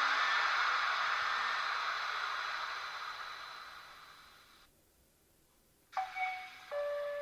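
Sound decoder of an H0 model BR 185 Traxx 2 electric locomotive playing its cooling-fan sound: a steady hiss that fades away over about four and a half seconds. After a second of silence, a two-note chime starts the station-announcement sound, the second note held.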